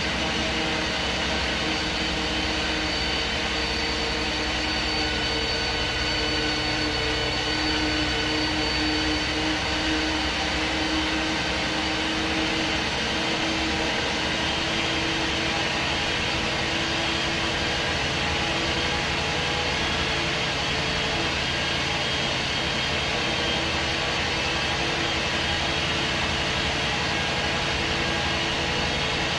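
MAN SD202 double-decker bus running with its MAN D2566 MUH diesel engine and Voith Diwa 851 automatic gearbox: a steady drone with several whining tones that drift a little in pitch in the first ten seconds, then hold even.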